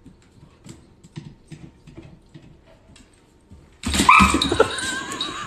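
Faint clicks of a dog's claws on a hardwood floor, then about four seconds in a sudden loud outburst from the dog: a bark followed by a high, wavering whine.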